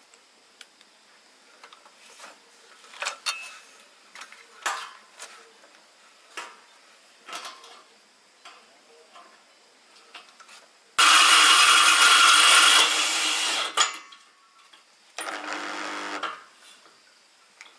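Light knocks and clinks from handling metal, then a power tool runs in two bursts: one loud, about three seconds long, about eleven seconds in, and a shorter, quieter one with a steady pitched whine near the end.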